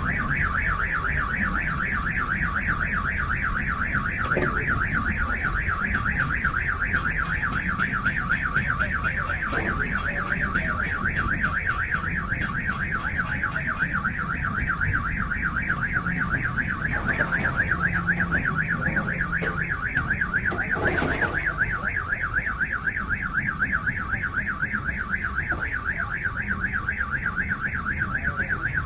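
Electronic alarm sounding continuously with a fast warbling tone, over a low rumble, with a few brief knocks.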